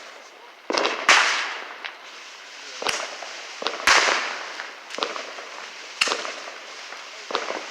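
Consumer fireworks going off: a string of about seven or eight sharp bangs at uneven intervals, each trailing off in a fading hiss of echo.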